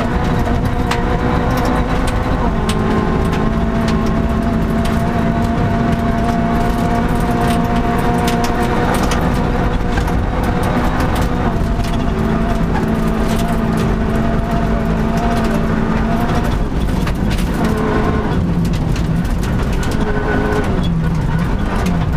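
Vauxhall Corsa 1600 rally car's engine, heard from inside the cabin, held at a steady note under full throttle on gravel, with stones clattering against the underside. In the last few seconds the engine note drops and breaks up as the car slows and shifts down.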